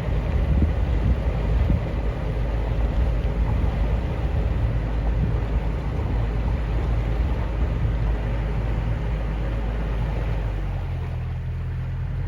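Narrowboat's diesel engine running steadily under way, a low hum, with wind buffeting the microphone. About eleven seconds in the wind noise eases and the engine hum comes through more plainly.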